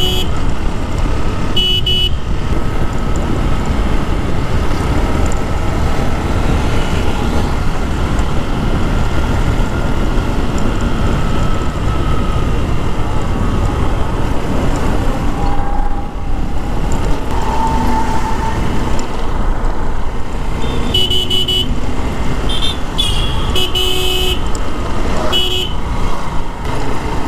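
Honda SP 125 motorcycle riding at steady speed: the single-cylinder engine runs under a constant rush of wind and road noise. Short vehicle-horn honks sound once about two seconds in, then several times between about 21 and 26 seconds.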